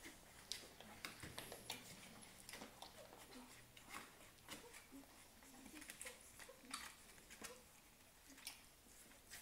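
Newborn puppies nursing from their mother: faint, irregular suckling clicks several times a second, with a few small squeaks and grunts.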